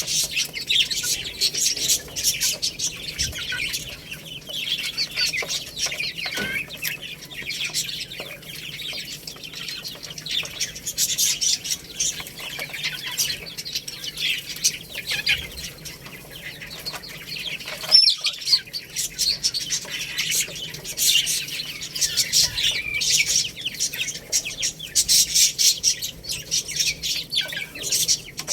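A group of young chicks peeping continuously, many short high chirps overlapping, with a single sharp click about 18 seconds in.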